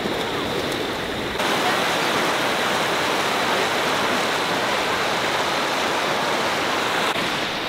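Steady rush of water cascading over a smooth rock slide into a swimming hole, turning brighter and a little louder about a second and a half in.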